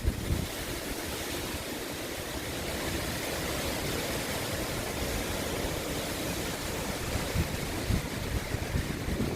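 Hurricane wind and rain making a steady rushing noise, with gusts thumping on the microphone now and then, most often near the end.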